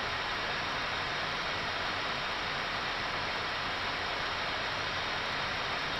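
Steady rushing background noise on the flight deck of an Airbus A319 in descent, an even hiss that holds at one level throughout.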